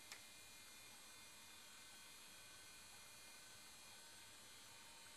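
Near silence: steady recording hiss with a faint hum, and one small click just after the start.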